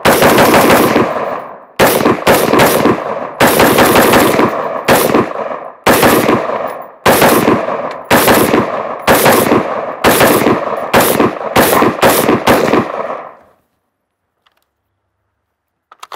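Daniel Defense MK18 pistol with a 10.3-inch barrel firing 5.56 mm rounds in rapid semi-automatic fire, a long string of loud shots, many in quick pairs, each trailing a short echo. The gun cycles through the magazine with no malfunctions; the firing stops about 13 seconds in, followed by a faint click near the end.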